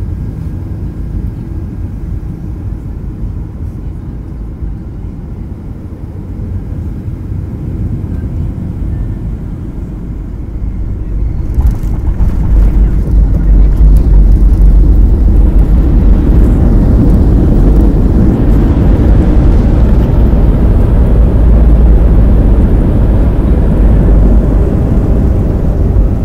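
Jet airliner cabin noise on landing: a steady low rumble on final approach, then about twelve seconds in the wheels touch down and the sound jumps to a loud rumble from the runway. The noise then swells further through the rollout as the wing spoilers stand up and the aircraft brakes.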